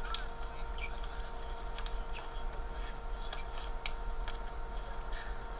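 Scattered short, sharp clicks over a steady electrical hum.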